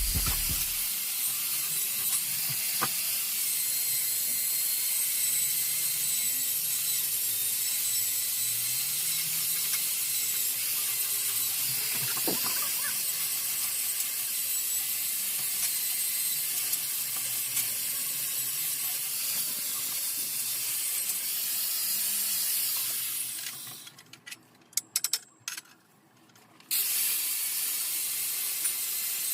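Stick-welding arc crackling and sizzling steadily as an electrode welds over holes in a metal tube. About 23 seconds in, the arc goes out for roughly three seconds, with a few short pops, then the crackle resumes.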